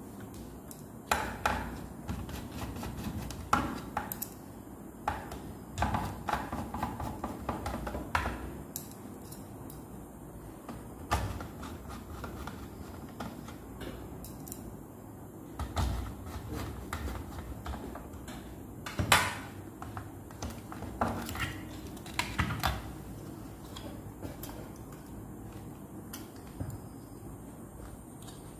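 Irregular clicks and knocks of a microwave oven control board's hard plastic case and hand tools being handled and fitted together on a workbench, with one louder knock about two-thirds of the way through.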